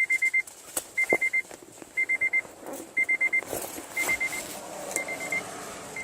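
Electronic warning beeper sounding in groups of four quick high pips, one group about every second, with a few scattered knocks and rustles in between.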